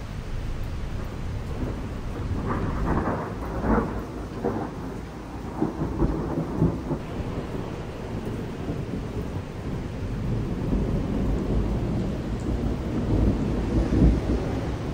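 Thunder rolling and rumbling over steady rain, swelling in several peals: a few seconds in, again about six seconds in, and loudest near the end.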